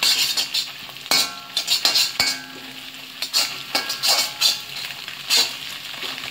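Eggs sizzling in hot oil in a large kadai while a spatula stirs and scrapes them into separate bits, with irregular scrapes and two short ringing clinks of the spatula on the pan about one and two seconds in.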